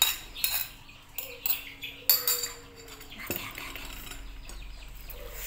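Metal spoon clinking and scraping against a bowl and a plate of rice as soto is scraped out. There are several clinks in the first couple of seconds, then a single sharp click about three seconds in.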